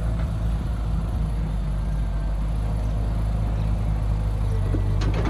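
A heavy diesel engine running steadily at an even speed, with a couple of short clicks near the end.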